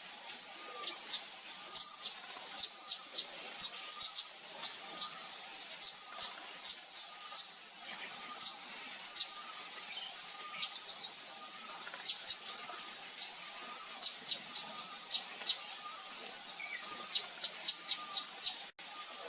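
Javan fulvetta calling: runs of short, sharp, high chipping notes, about three a second, broken by short pauses.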